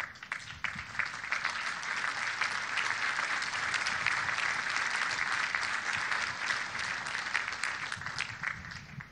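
A large crowd applauding: many hands clapping together, building over the first second or two, holding steady, then thinning out near the end.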